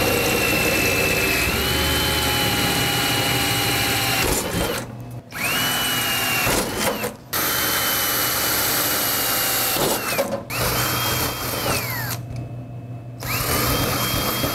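Cordless drill with a small 3/16-inch bit boring holes through a snack vending machine's steel panel. The motor's whine runs and stops about five times, with short pauses between runs.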